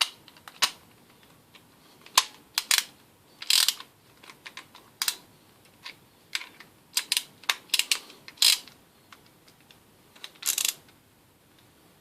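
Irregular sharp clicks and a few short clattering rattles as pieces of a 96-piece car repair tool kit are handled.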